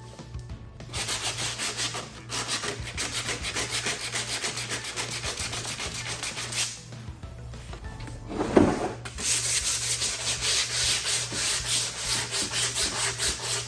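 Wooden shelf being hand-sanded in quick, even back-and-forth strokes, in two spells with a short pause between them; a single brief bump sounds during the pause.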